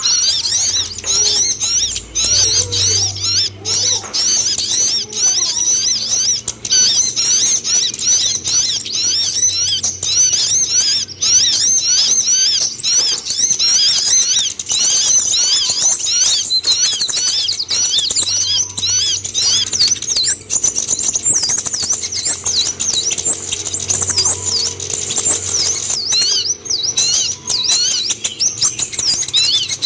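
Kolibri ninja (van Hasselt's sunbird) song: a fast, unbroken stream of high, thin twittering and chirping notes, with a faint steady low hum underneath.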